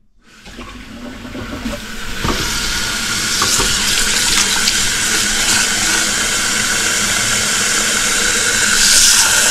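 Kitchen faucet running into a stainless steel mixing bowl of diced raw chicken breast, rinsing the chicken. The water sound builds over the first couple of seconds, then runs steadily.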